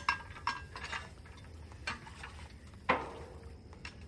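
Hand winch on a boat lift crane being cranked, its ratchet clicking about every half second, then one louder metallic clank with a short ring about three seconds in.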